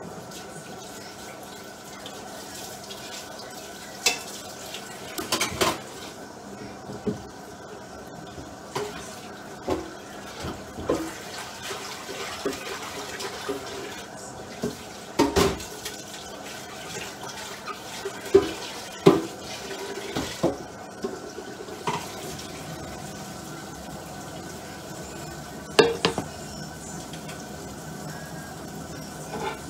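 Pots, pans and cutlery being washed at a kitchen sink with the tap running: irregular clinks and knocks of metal against metal over the sound of running water.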